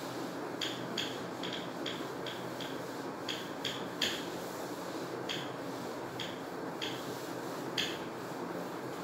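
Whiteboard duster wiped across a whiteboard in a dozen or so short, irregular scrubbing strokes over a steady hiss, stopping near the end.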